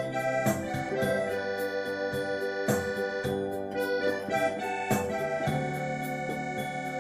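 Instrumental music played on an organ-like keyboard: held chords, with a new chord struck about every two seconds.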